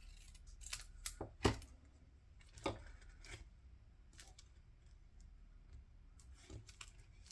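Scissors snipping through paper: a scattering of short, sharp snips, the loudest about a second and a half in, with fainter clicks later on.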